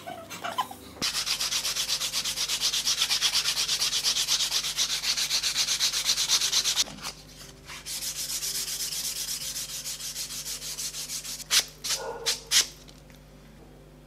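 Quick back-and-forth rubbing strokes on leather, in two runs with a short pause between, the second run fainter. Near the end come three sharp clicks.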